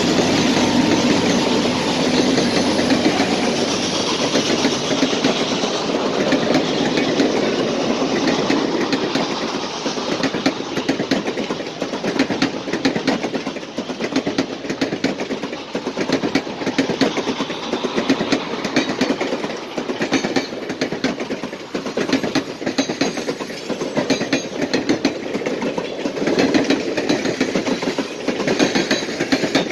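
A pair of EMD SD50 diesel locomotives rolls past with their engines running, followed by a long string of passenger coaches. From about eight seconds in, the steel wheels click rapidly over the rail joints.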